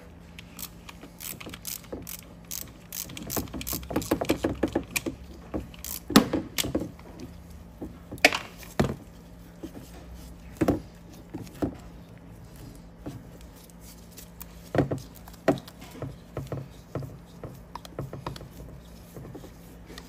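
Irregular clicks, rattles and knocks of a seat belt pretensioner being worked loose and pulled free after its bolt is out. The clicks come thick and fast over the first several seconds, then thin out to scattered knocks.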